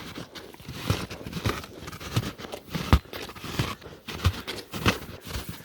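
Footsteps crunching in snow, irregular steps about one or two a second.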